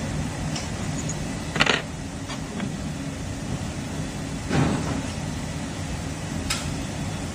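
Steady machine hum, with three short bursts of noise about one and a half, four and a half and six and a half seconds in.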